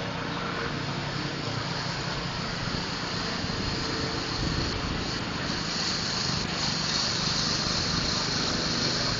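Small petrol engine of a concrete power trowel running steadily, with a hiss that grows stronger about halfway through.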